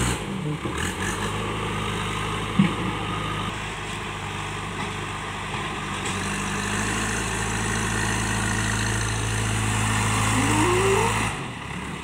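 Diesel engine of a JCB backhoe loader running steadily while the front bucket works a pile of soil, with a single sharp knock a couple of seconds in and a short rising whine near the end.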